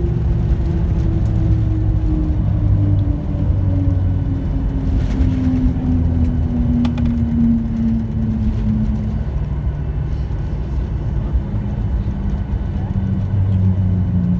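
Cabin sound of a Boeing 737-800's CFM56 jet engines: a deep, steady rumble with an engine whine that falls slowly in pitch for several seconds, then holds lower, as the engines throttle back.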